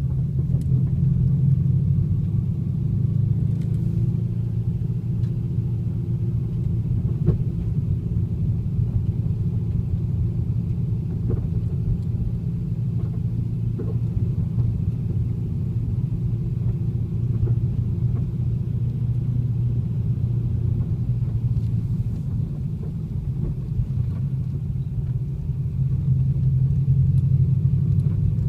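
2010 Chevrolet Camaro running with a steady low rumble, with scattered faint clunks over it: the clunking noise the car is making. The rumble gets a little louder near the end.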